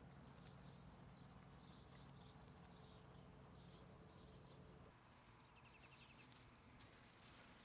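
Near silence: faint outdoor ambience with small high-pitched chirps repeating about twice a second, and a short rapid trill a little past the middle.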